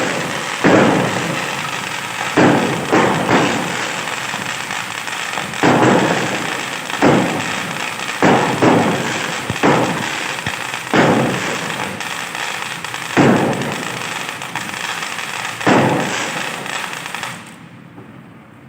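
Aerial fireworks going off: a string of booms, one every second or two, with a steady crackle between them. The bursts die away near the end.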